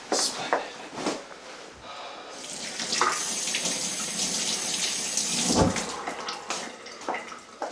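Kitchen sink faucet running, with hands working under the stream, from about two seconds in until about six seconds. Sharp clicks and knocks of things being handled come before and after it, and a heavy thump lands near the end of the running water.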